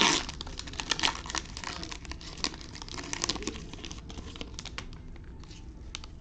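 Crinkling of a foil trading-card pack wrapper and the quick clicks of cards being handled and slid against each other, loudest in the first second and thinning out near the end.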